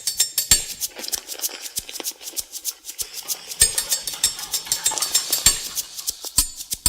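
Rapid clicks and clinks of metal cutlery against a dish, sampled and cut into a percussive beat.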